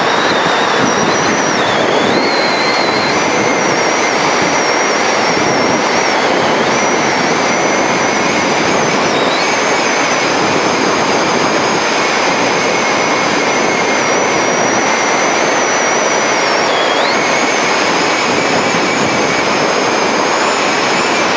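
Wind rushing over the microphone of a mountain bike descending a paved road at high speed: a loud, steady rush of noise, with faint high whistles that waver in pitch.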